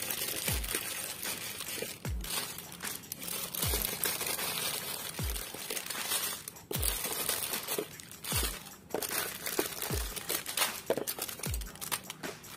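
Plastic chocolate-bar wrappers crinkling and rustling as handfuls of bars are shaken out of a clear plastic bag onto a pile. Under it, background music with a deep, falling bass beat about every one and a half seconds.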